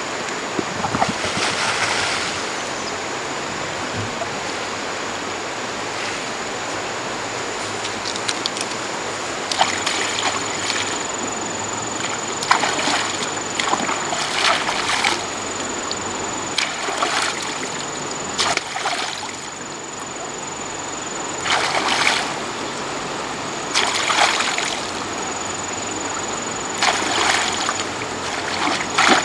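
Water splashing in short bouts every few seconds over a steady rush of water.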